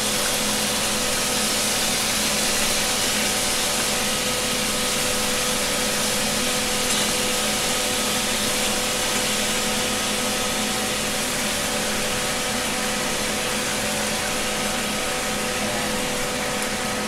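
Beef pieces sizzling steadily in hot oil in a frying pan, an even frying hiss, with a steady machine hum underneath.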